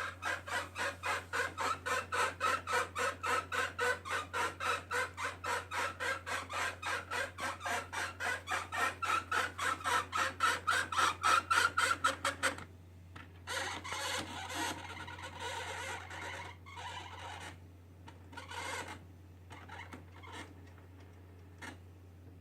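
Canon MP630 inkjet printer's paper-feed gears squeaking and grinding in rapid, even strokes, about four a second, the squeak creeping slightly higher in pitch. About two-thirds of the way in, the squeaking stops and gives way to irregular whirring and clicking of the print mechanism. The squeak comes from dry paper-guide gears at the rear right corner, which a drop of oil on each gear cured.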